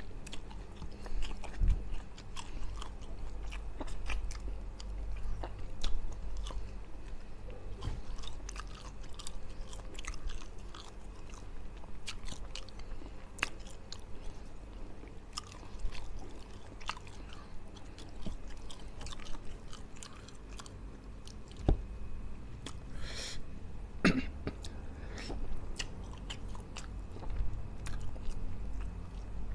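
A person chewing fried fish eaten by hand, sucking and picking the meat off the bones, with lip-smacking: a steady run of small, sharp mouth clicks.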